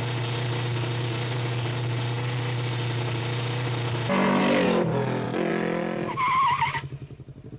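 Animated motorbike engine sound effect running as a steady drone, getting louder and changing pitch about four seconds in, then a short tyre squeal near the end.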